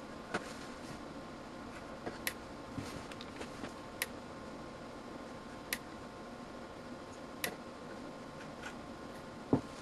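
About eight sharp clicks at uneven intervals over a faint steady electrical hum, the loudest near the end. These are the surge test rig firing 2 kV pulses into a Gardner Bender GDT-311 digital multimeter.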